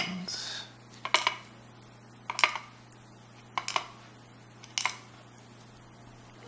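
Brass lock pins clicking out of an Arrow KIK cylinder's plug onto a wooden pin tray during disassembly: about five sharp metallic clicks, roughly a second apart, each with a brief ring.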